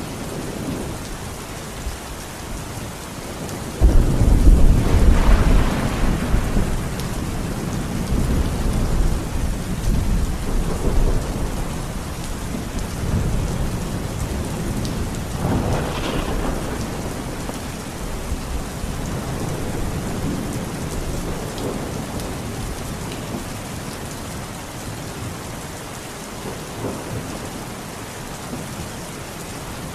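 Heavy rain falling steadily through a thunderstorm. About four seconds in a sudden loud thunderclap breaks into a deep rolling rumble lasting several seconds, and a second, weaker roll of thunder follows about midway.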